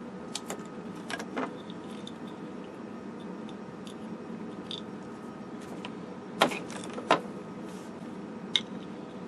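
Metal pick scraping and clicking against a Bakelite capacitor block as old capacitors are pried out of it. There are scattered small clicks, with two sharp, louder clicks about two-thirds of the way through and another near the end.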